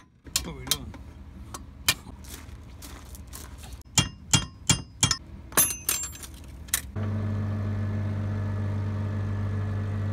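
Metal tools clinking and clanking on the unloading auger's bearing and its steel hanger, with a quick run of sharp, ringing metallic strikes about four to six seconds in. About seven seconds in a forklift engine starts to be heard, idling steadily.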